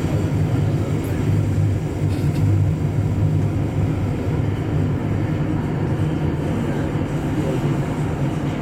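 Incheon Line 2 driverless metro train running between stations, heard from inside the front car: a steady low rumble of wheels on rail and traction motors.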